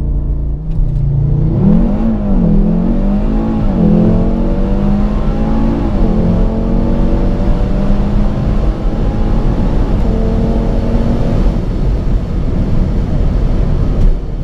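HGP-tuned Audi RS3 8V's turbocharged 2.5-litre five-cylinder at full throttle: held at steady revs at a standstill, then accelerating hard from rest. Its note climbs and drops at quick dual-clutch gear changes about two, four and six seconds in, then pulls long through fourth before a shift to fifth near the end.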